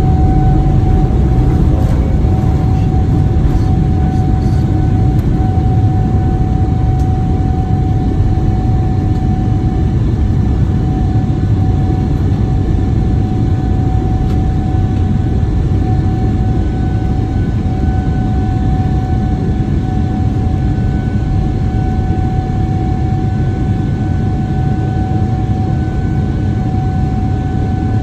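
Jet airliner's engines heard inside the cabin during takeoff: a loud, steady deep rumble with a steady whine running through it.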